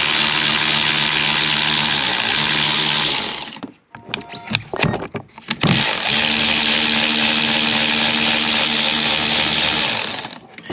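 Cordless power driver with a 10 mm socket spinning out engine-bay screws, in two steady runs of about four seconds each, with a few clicks and knocks of the tool and parts between them.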